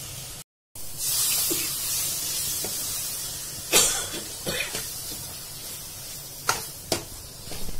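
Chopped onions, green chilli paste and tomatoes sizzling in hot ghee in a stainless steel kadai, the sizzle starting abruptly about a second in and slowly dying down. A steel ladle knocks and scrapes against the pan several times as the mixture is stirred.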